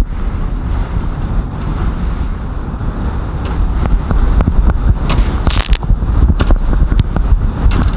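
Strong wind buffeting the microphone with a heavy low rumble, as a small metal boat pounds through storm waves; waves slap the hull in short sharp hits, with a burst of spray about five seconds in.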